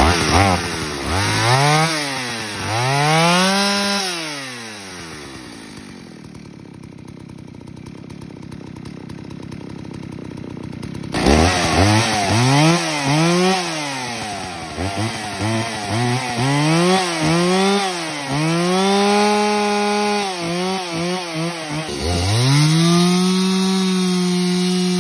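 A restored 1983 Husqvarna 61 two-stroke chainsaw running, revved up and down again and again, with a quieter stretch of a few seconds in the middle. Near the end it is held at full throttle, cutting through a log.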